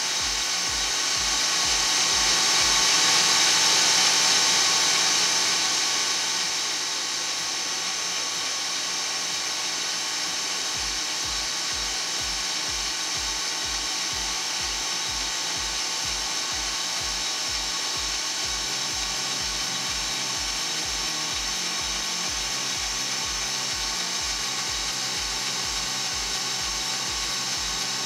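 BL505 brake lathe making its slow final finishing cut on a brake rotor, with the silencing band on the rotor: a steady hiss of the cutting bits on the metal, louder for the first several seconds. Under it runs an even low pulse, about two a second.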